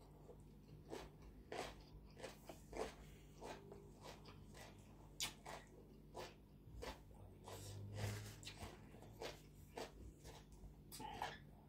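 Close mouth sounds of someone chewing a mouthful of khanom jeen rice noodles: faint, irregular wet smacks and clicks, a few every second.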